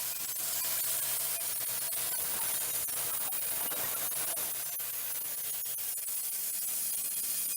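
Wood-Mizer portable band sawmill running: a steady engine hum under a high, even hiss from the band blade cutting through a black walnut log.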